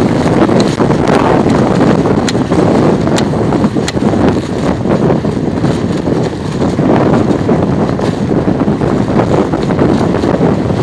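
Strong wind gusting and buffeting the microphone during a storm, with a few sharp ticks in the first four seconds.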